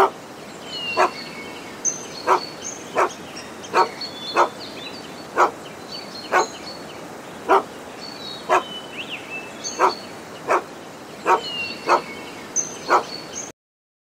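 A dog barking repeatedly: single sharp barks at irregular intervals of about one a second, with faint short high chirps in between.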